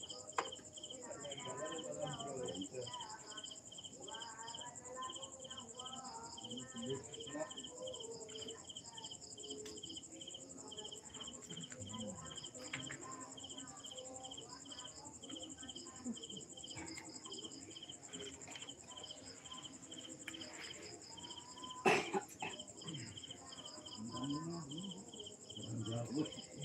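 Night insects chirping: a steady high trill with a regular pulsing chirp a few times a second over it. Faint distant voices murmur underneath, and a single sharp knock sounds late on.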